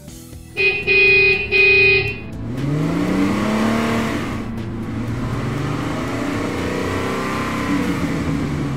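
A car horn honks three times, then car engines rev and pass by, the pitch rising and falling.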